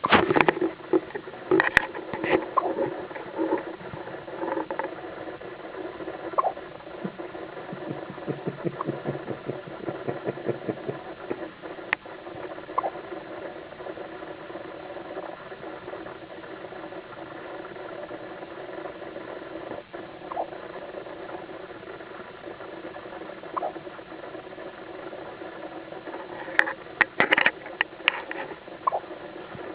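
Newborn baby hiccuping, with short soft hics a few seconds apart. Rustling and clicking of handling fill the first ten seconds or so and come back near the end, over a steady hum.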